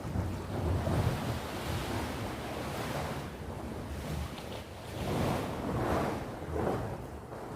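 Sea waves breaking and washing on the shore, in swells that build about a second in and again a few seconds later, with a low rumble of wind on the microphone.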